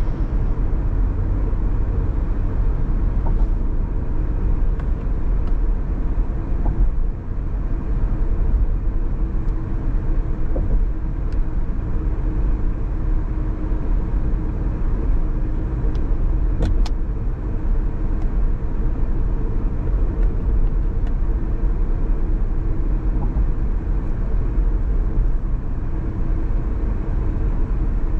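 Steady road and engine noise of a car driving: a continuous low rumble with a faint hum above it. There is a brief faint tick about two-thirds of the way through.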